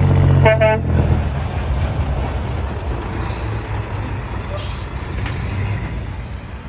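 A heavy truck passing close, its diesel engine loud at first and dying away in about the first second. A short horn blast sounds about half a second in, then tyre and road noise slowly fades.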